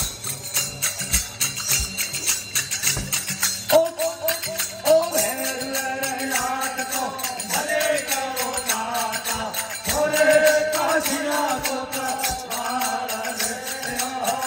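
Devotional bhajan: shaken jingling hand clappers and small hand cymbals keep a fast beat. From about four seconds in, men's voices sing the bhajan over them.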